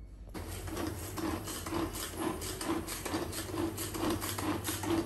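Hand-pull vegetable chopper worked by its pull cord about twice a second, each pull spinning the blades with a short whir as they chop onion.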